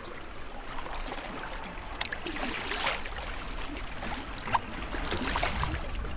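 Water trickling and splashing around a kayak as it is paddled, with a couple of swishing paddle strokes, over a steady low rumble.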